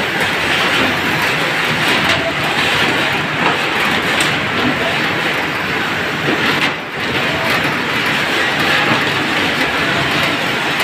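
Orange grading machine running: a loud, steady mechanical noise from the conveyor carrying wet oranges along, briefly dipping about seven seconds in.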